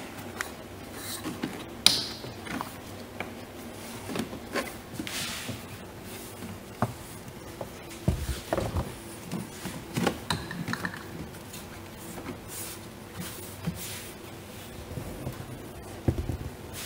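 Hands fitting a rubber seal piece under the edge of a plastic windshield cowl: scattered clicks, taps and scrapes of rubber and plastic being pressed and slid into place, with a sharp click about two seconds in and a few dull bumps about eight seconds in and again near the end.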